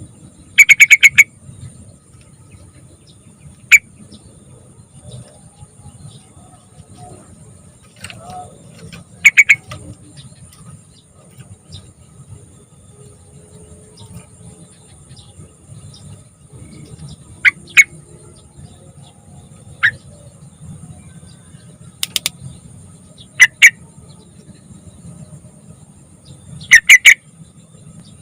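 Sooty-headed bulbul (trucukan) calling: short, loud bursts of rapid chattering notes alternating with single sharp notes, a few seconds apart, over a low background rumble.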